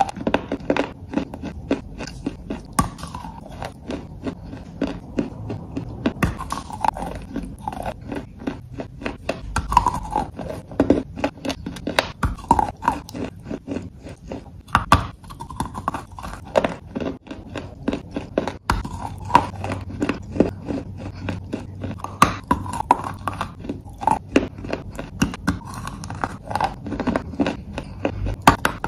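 A person biting and chewing lumps of gray clay: a dense run of sharp crunching cracks, several a second.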